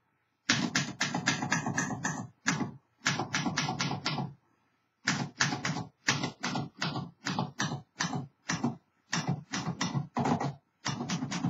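Typing on a refurbished 1946 Underwood Champion manual typewriter: type bars striking the platen in quick runs of several keystrokes a second, broken by a few short pauses.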